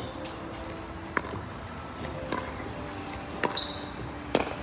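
Pickleball paddles striking the hollow plastic ball in a doubles rally: four sharp pops about a second apart, one with a short high ping.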